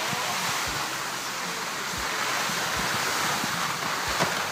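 Steady rushing hiss of skis sliding slowly over snow, mixed with wind on the microphone, with a few soft low thumps.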